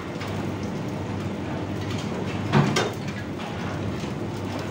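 Steady rumble of a commercial kitchen's exhaust hood fan and gas burners, with a single loud knock about two and a half seconds in.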